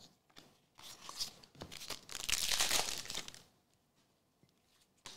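Trading cards being handled: a short rustle about a second in, then a longer crinkling scrape from about two seconds in, with a few small ticks.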